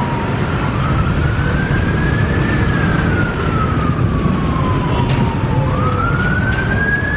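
Hearse siren wailing, its pitch rising over about two seconds and falling slowly over about three, then rising again near the end, over a steady low engine rumble.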